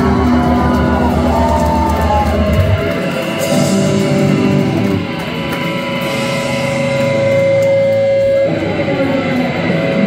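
Amplified electric guitars of a live punk band, loud. About three seconds in the heavy low end drops away, leaving guitar strumming with a single held note ringing for a couple of seconds.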